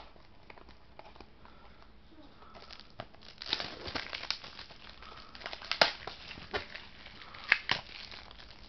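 Plastic shrink-wrap being torn and crumpled off a DVD case: crinkling that thickens after about three seconds, with a few sharp crackles, the loudest near the end.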